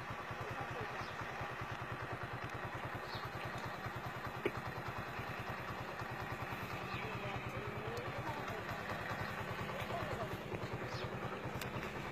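An engine running steadily at an idle, with an even, rapid low thumping, and one sharp click about four and a half seconds in.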